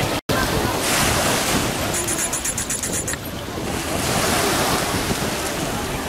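Sea surf washing onto a pebble beach, with wind buffeting the microphone.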